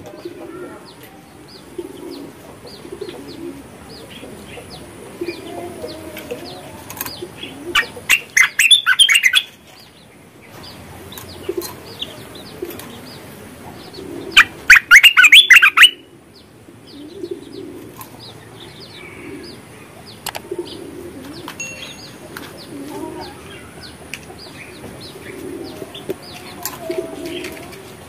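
Caged merbah (bulbul) calling in two loud bursts of rapid, chattering notes, about a third of the way in and again past the middle, with scattered short chirps between. A low cooing repeats about once a second in the background.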